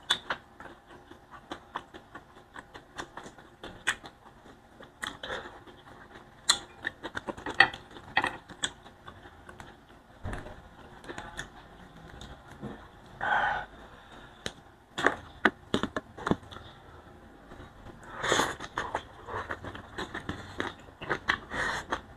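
Close-up eating sounds: irregular small clicks, crackles and mouth smacks of chewing and of fingers handling and stripping boiled leafy vegetable stems, with a couple of slightly longer smacks partway through.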